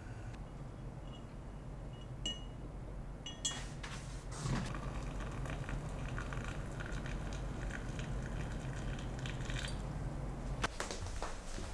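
Water poured from a glass kettle into a glass tea pitcher over a blooming tea ball, splashing steadily for about six seconds. A few light glass clinks come before the pour, and one sharper clink near the end as the kettle comes away.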